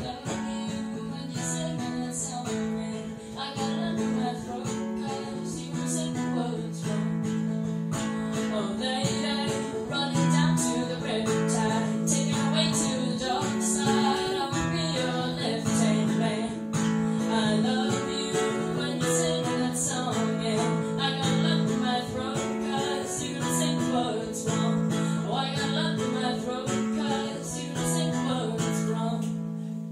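Live acoustic song: a woman singing over a steadily strummed acoustic string instrument, fading out near the end as the song finishes.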